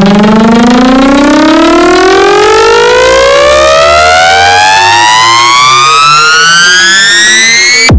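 A long siren-like synth riser in electronic dance music, one loud tone with overtones climbing steadily in pitch over about eight seconds above a faint beat, cutting off abruptly near the end as the build-up ends.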